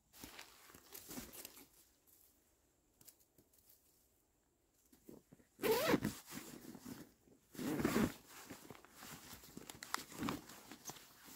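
Backpack zipper pulled in two quick loud strokes, with nylon fabric rustling and smaller handling sounds around them.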